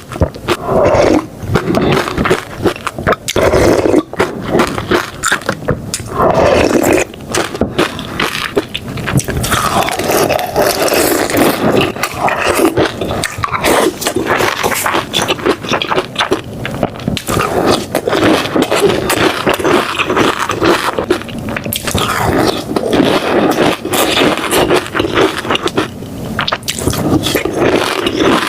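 Close-miked eating: loud, continuous chewing and slurping with crackly, wet mouth sounds.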